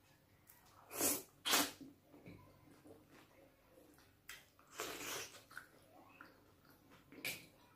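Close-miked mouth sounds of eating soup by hand: four short, sharp slurps. Two come half a second apart about a second in, a longer one comes midway, and one comes near the end.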